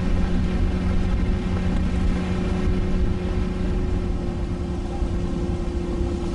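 A boat's engine running at a steady pitch, with wind rumbling on the microphone.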